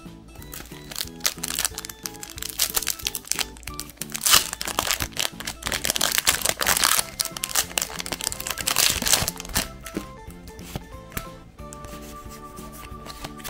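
Foil Pokémon card booster pack wrappers crinkling and being torn open, a dense crackle that is busiest in the middle and stops about ten seconds in, over background music.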